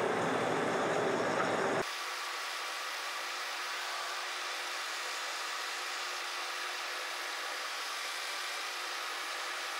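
Metal lathe running steadily with its large faceplate spinning, taking a light boring cut in a steel gear blank. About two seconds in the sound abruptly gets quieter and loses its low rumble, then runs on as an even whir.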